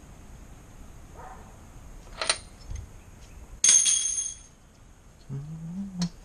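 A small click, then a sharp metallic clatter with a brief ringing, like a metal tool or part set down during the repair. Near the end comes a short low voice-like sound.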